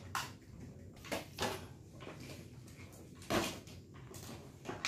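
Small plastic toy cars and their plastic packaging handled by a toddler: about five short clatters and rustles, the loudest a little over three seconds in.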